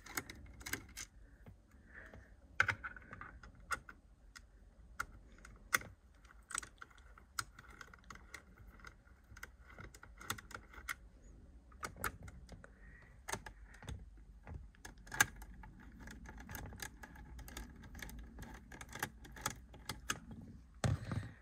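A screwdriver working small Torx screws out of a plastic steering-column clock spring, making irregular light clicks and ticks.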